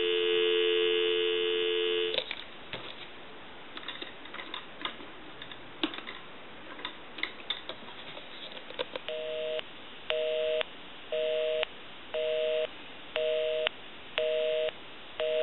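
Telephone dial tone, a steady two-tone hum, cuts off after about two seconds. Faint clicks follow as a number is dialed on the wooden desk telephone. From about nine seconds in comes the line's busy signal, a two-tone beep pulsing about once a second, meaning the called number is busy.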